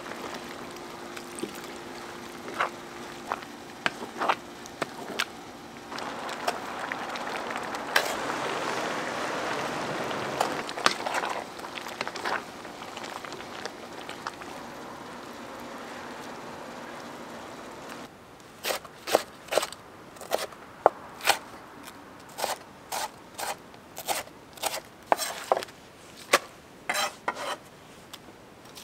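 Kitchen food-preparation sounds: a steady hiss over a low hum with scattered clicks. About two-thirds of the way in these stop suddenly, and a run of sharp knocks follows, about two a second.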